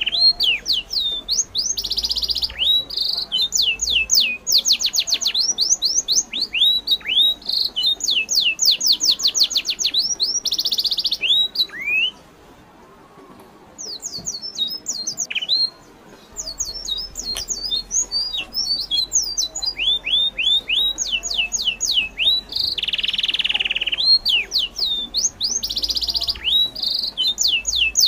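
Wild birds calling: quick runs of high, sweeping chirps, many notes a second, broken by a few short, harsh squawks. There is a brief lull about twelve seconds in.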